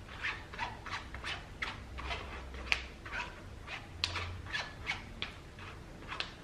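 Blended baby food being pressed and scraped through a plastic mesh sieve: short, quick squelching scrapes, about three a second.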